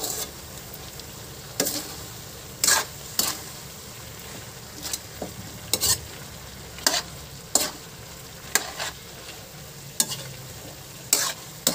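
Metal ladle scraping and knocking against a wok while vegetables and pork are stir-fried, over a steady low sizzle. There are about ten scrapes and clanks at irregular intervals.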